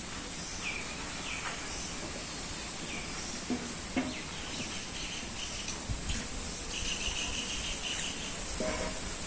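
Rural daytime ambience: a steady high insect drone under scattered bird chirps, including a quick run of repeated chirps around the middle, with a couple of soft knocks.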